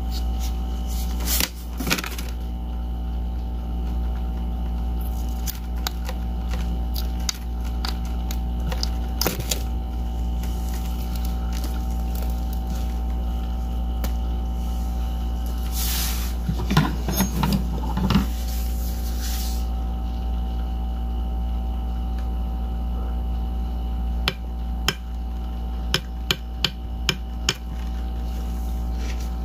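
Metal spoon tapping on a hollow frozen-balloon ice shell, a run of sharp taps starting about three-quarters of the way in, over a steady freezer hum with scattered knocks of handling before it.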